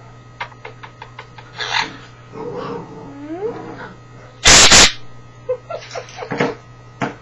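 Quaker parrot vocalizing: a quick run of clicks, then rising, whistle-like glides and chatter, a very loud harsh burst about four and a half seconds in, and more short calls near the end.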